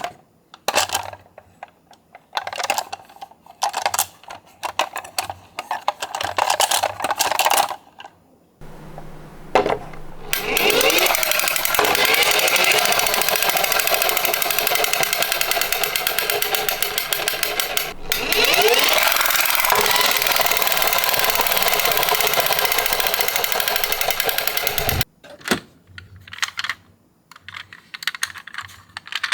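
Toy minicars (an ambulance and a bus) rolling down a toy slope, their small plastic wheels and bodies clicking and rattling. The rattling comes in scattered runs at first, then turns into a loud, dense, continuous clatter from about ten seconds in that stops abruptly near the end, followed by a few more scattered clicks.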